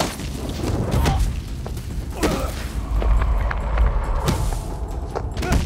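Kung fu film fight soundtrack: a music score under a run of sharp dubbed punch and kick impacts and whooshes, with a heavy low boom swelling in the middle.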